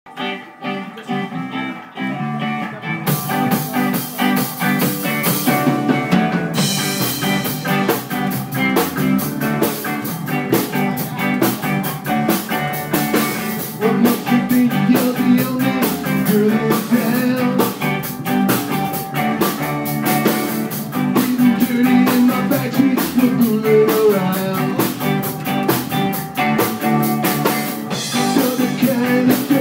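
Rockabilly band playing live: upright bass, electric guitars and drum kit. The high end is thin for the first few seconds, then the cymbals come in and the sound fills out.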